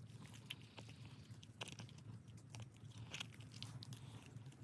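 Faint, irregular wet crunching and clicking of a knife cutting through the small muscles and connective tissue around a deer's colon, with a couple of sharper crackles about a second and a half and three seconds in.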